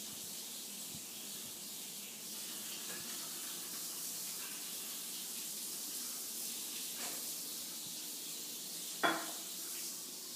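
Steady high-pitched hiss, with one short sharp sound about nine seconds in.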